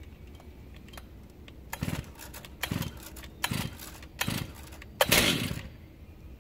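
Two-stroke chainsaw with a 36-inch bar being pull-started: five short bursts of the engine turning over on the recoil cord, about one every second, the last the loudest and longest. The engine does not catch.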